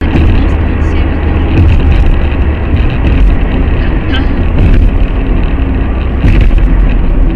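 A car's steady road and engine rumble heard from inside the cabin while it drives at highway speed. There are scattered short clicks and knocks.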